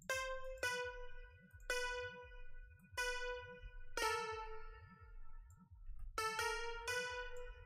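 A slow melody of single keyboard-synth notes, electric-piano-like, played back from a music production program. About eight notes come at uneven gaps, each struck and then decaying, with a cluster of quick notes about six seconds in. A faint steady low pulse runs underneath.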